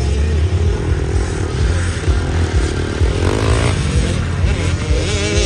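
Several motocross dirt bikes running and revving on a dirt track, the engine pitch rising and falling as the riders work the throttle.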